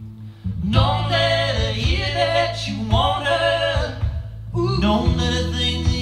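Live band music played back over a Bang & Olufsen BeoVision Harmony TV sound setup and heard in the room: a man singing long held phrases over guitar and a steady bass line. The music dips briefly just before half a second in, then the singing comes back.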